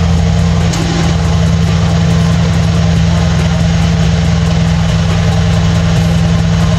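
Mercedes-AMG E63 S's 4.0-litre twin-turbo V8 idling steadily, heard at the quad exhaust outlets.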